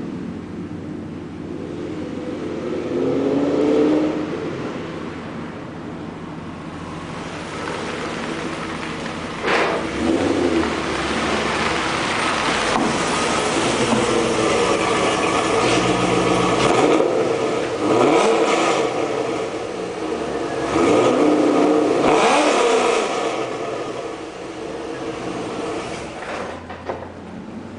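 Modified Corvette LS V8 with long-tube headers, an X-pipe and a titanium exhaust, accelerating hard several times, its revs climbing and falling in repeated surges, loudest a little after the middle, then dying away near the end.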